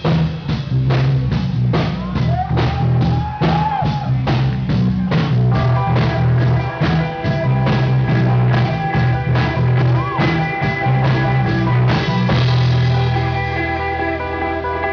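Rock band playing, with drums hitting on a steady beat under bass and electric guitar, including a few bent notes. About twelve seconds in the drums stop and the guitar chords ring on.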